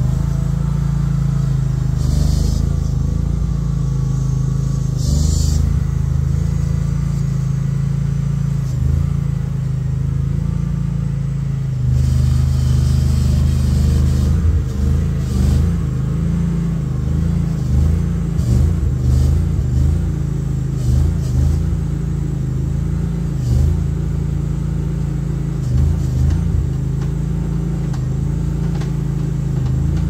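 KRW232 Chinese mini skid steer's engine running under load as it digs and carries dirt, its note rising and dipping with the work, with a few brief louder noises.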